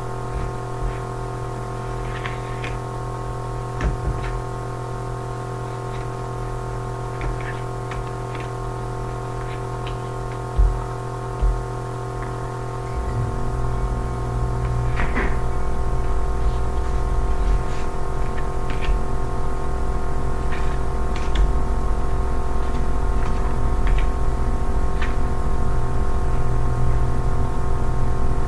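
Ambient droning background music of steady sustained tones, with a low pulsing layer that swells about halfway through. Light clicks and taps are scattered over it.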